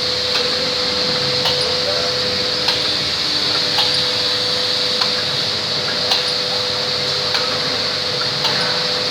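Automatic powder sachet packing machine running, a steady hum and hiss with a sharp click about once a second, one per packing cycle.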